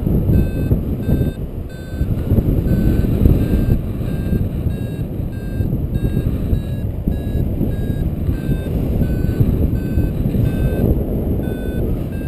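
Paragliding variometer beeping about twice a second at a slightly wavering pitch, the climb tone that signals rising air. Heavy wind rush on the microphone runs underneath.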